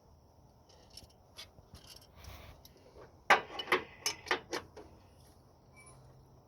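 Metal hand tools clinking and clattering: a few light clicks, then a burst of about six sharp clinks between about three and four and a half seconds in.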